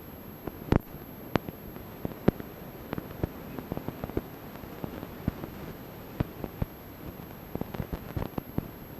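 Irregular sharp clicks and crackles, a few a second and varying in strength, over a faint steady hiss.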